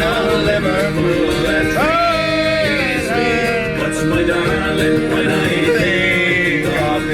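Background music in a country or bluegrass style: plucked strings such as banjo and guitar, with a gliding vocal or slide melody line.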